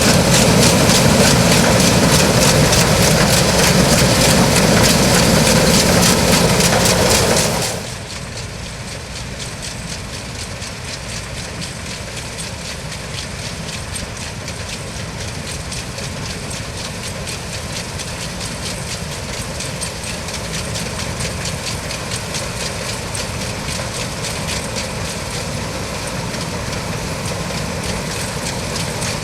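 New Holland CX8090 combine harvester on tracks, running loud and steady. About seven seconds in it drops suddenly to a quieter steady run that slowly grows louder again.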